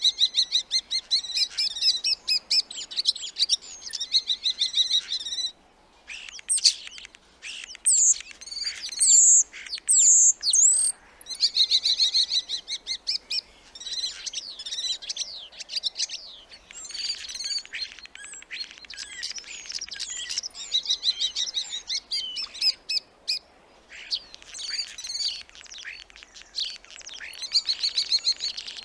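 Starling singing a varied, run-on song of fast chattering rattles, clicks and whistled glides. It comes in long phrases broken by short pauses about five and a half and eleven seconds in.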